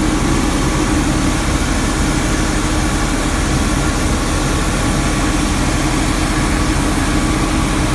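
Street sweeper's engine and working machinery running with a steady, unchanging drone, heard from inside the cab.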